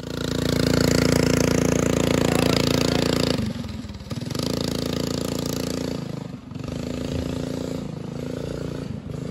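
The Duromax 208 cc single-cylinder engine of a small off-road buggy revving high as the buggy pulls away. It is loud and steady for about the first three seconds, then quieter and farther off, with its revs dropping and picking up again a few times.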